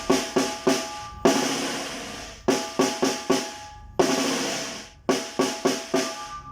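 Tarola (Mexican banda snare drum) played in a son rhythm: quick groups of sharp, ringing strokes, twice broken by a longer drawn-out stroke that fades over about a second, about a second in and again about four seconds in.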